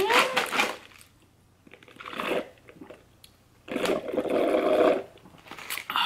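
Ice rattling in a plastic cup as it is shaken, then close-up eating and drinking mouth sounds. The loudest of these is a noisy stretch of about a second and a half near the end.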